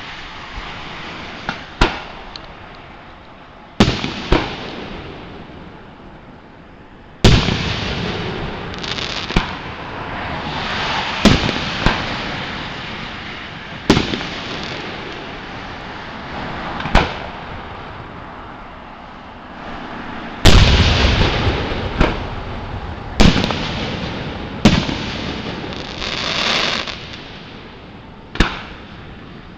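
Aerial firework shells bursting overhead one after another, about a dozen sharp bangs a few seconds apart, each followed by a rolling echo.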